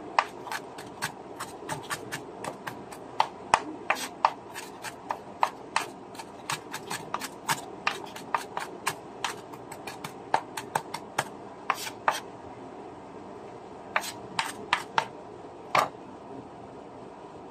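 Kitchen knife mincing a small red onion on a bamboo cutting board: quick, irregular taps of the blade on the board, about four a second, pausing about twelve seconds in before a few more chops.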